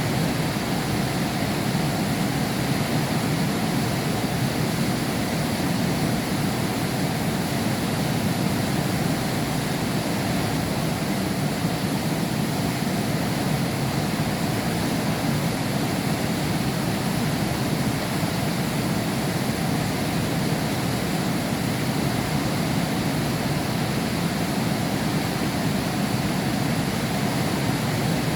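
Heavy rain heard from behind window glass: a steady, even rush of noise, fuller in the low end, with no break or change.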